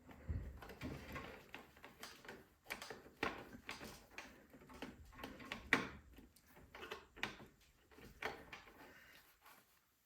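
Faint, irregular small clicks and knocks of a stiff choke knob on a Craftsman snowblower engine being wiggled slowly to work it off its shaft.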